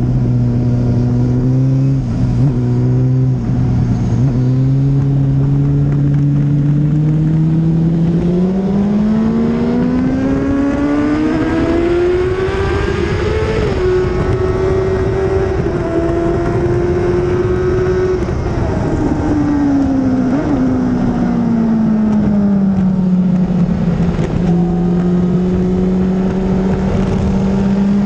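Onboard sound of a 2004 Honda CBR600RR's inline-four engine on track, with wind rush. The engine note holds steady, rises for several seconds as the bike accelerates, holds high, then falls back and begins to climb again near the end.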